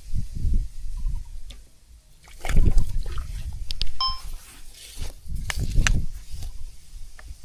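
Water sloshing and splashing, broken up by knocks and rumbles close to the microphone, with a short high chirp about four seconds in.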